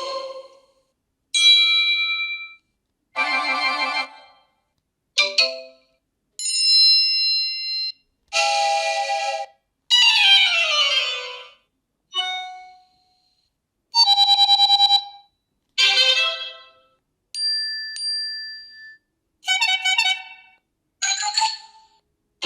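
A run of short iPhone alert tones played one after another, about a dozen, each lasting a second or so with a brief silence between. They are short melodic chimes and jingles, and one near the middle slides downward in pitch.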